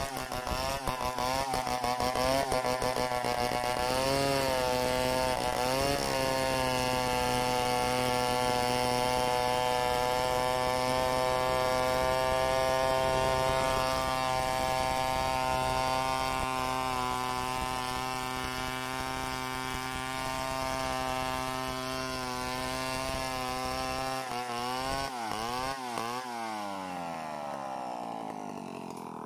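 Two-stroke chainsaw ripping lengthwise along a log: the engine revs up and down for the first few seconds, then runs at a steady high pitch under load through most of the cut. Near the end the pitch wavers and falls away as the throttle is released.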